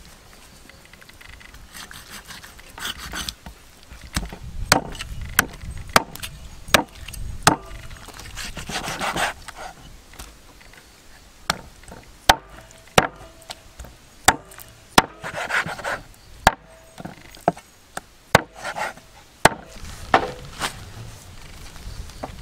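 A blade chopping on wood: a series of sharp chops, roughly one every two-thirds of a second in runs, starting a few seconds in, with rubbing and scraping sounds between them.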